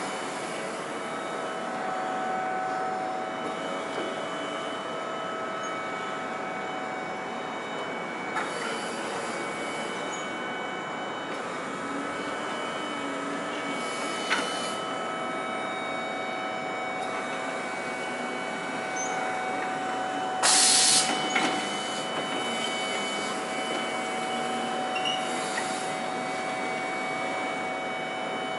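Electric forklift running with a milling machine on its forks: a steady hum with several thin whining tones from its motors. A loud burst of noise about a second long comes some twenty seconds in.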